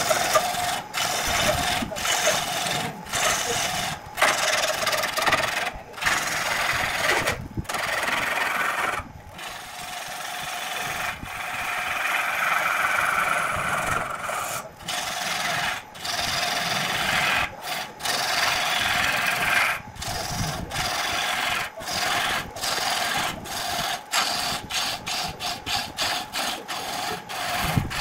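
Hand-held turning gouge cutting a spinning wooden blank on a lathe: a rough, continuous shaving noise over a steady hum. It breaks off in short gaps where the tool lifts from the wood, more often near the end.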